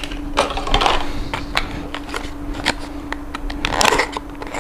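Small plastic packaging of a 1:64 diecast model car being handled: light irregular clicks and short rustles as the car is worked out of its clear plastic case. A steady low hum runs underneath.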